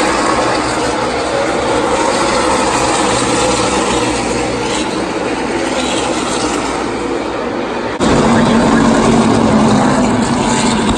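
A pack of NASCAR Xfinity Series stock cars with V8 engines running at speed around a short oval, a loud continuous engine din. About eight seconds in it cuts suddenly to a steadier, lower engine drone.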